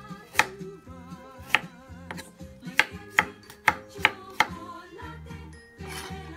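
A chef's knife chops through carrots onto a wooden cutting board in about seven sharp knocks. The knocks come faster from about three seconds in and stop shortly after four seconds. Background music with singing plays underneath.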